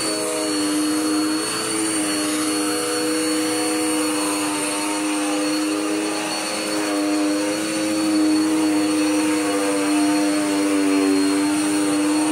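Dirt Devil Power Max vacuum cleaner running on carpet: a steady motor whine whose pitch wavers slightly.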